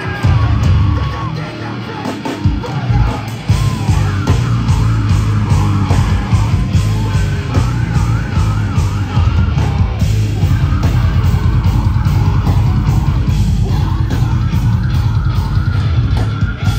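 Hardcore punk band playing live at full volume: distorted guitars, bass and drums under a yelled vocal.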